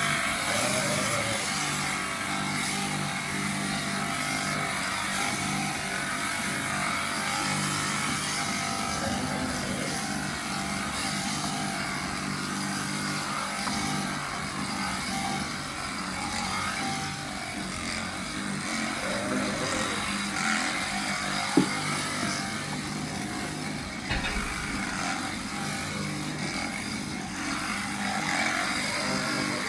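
Electric sheep-shearing handpiece running steadily, a continuous motor hum with a hiss above it, and one sharp click about twenty seconds in.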